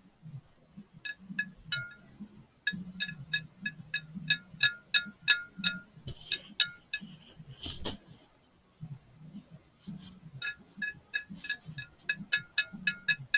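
Paper clips worn over fingernails tapping a glass plate, each tap a light click with a short glassy ring. The taps come in two runs of about four a second, broken by a pause with one louder, noisier sound about eight seconds in.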